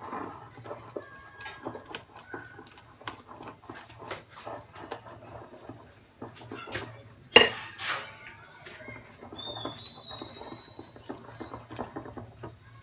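A wire whisk beating a thick creamy mixture in a ceramic bowl: quick, irregular clicks and scrapes of the wires against the bowl, with two loud clinks a little past the middle.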